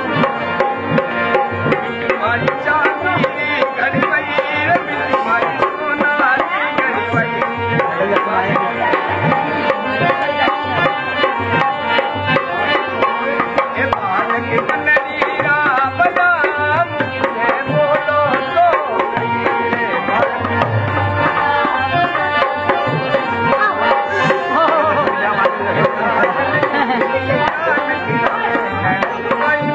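Indian folk music led by a fast, steady hand-drum beat, with a melody line wavering over it. It is the accompaniment to a Rajasthani kathputli marionette dance.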